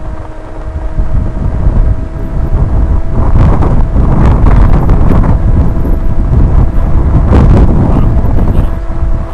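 Wind buffeting the microphone in a loud, gusting low rumble that is heaviest through the middle of the stretch, with a thin steady hum underneath.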